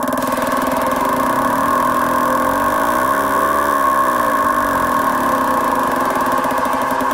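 Synthesised electronic drone from a live generative audiovisual performance: a dense, steady mass of layered tones, with a lower tone that glides up and back down about three seconds in.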